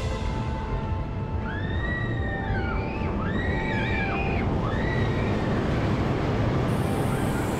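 Roller coaster train running on its track, heard from on board: a steady low rumble of wheels and wind. In the middle come several high squealing whines, each about a second long, rising, holding and falling.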